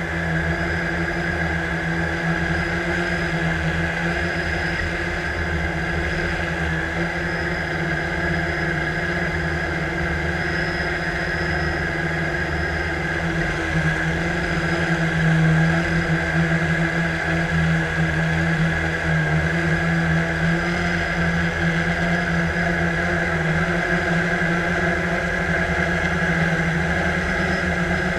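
Drone's electric motors and propellers humming steadily in flight, heard up close from the drone's own camera. The hum gets a little louder about halfway through as the drone climbs.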